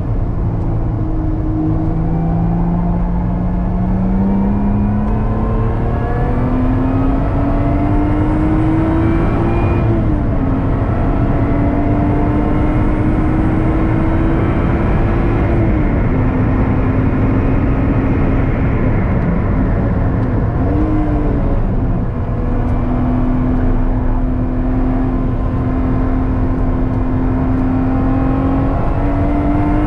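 Lotus Exige 410's supercharged V6, heard from inside the cabin on track. The engine pulls hard with rising pitch, drops in pitch at a shift about a third of the way in and holds at full throttle, then falls away about halfway through as the driver lifts. It runs on steadily at part throttle, with a short dip and rise a little after two-thirds in.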